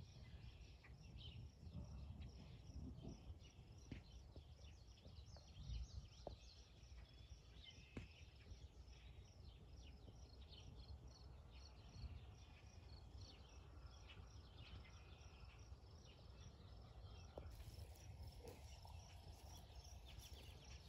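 Near silence: faint outdoor ambience with a steady, evenly pulsing insect chirp over a low rumble, and a few soft clicks.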